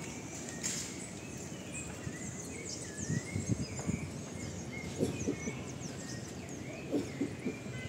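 Birds chirping repeatedly in short gliding calls over a steady background hiss of outdoor ambience, with a few soft low thuds.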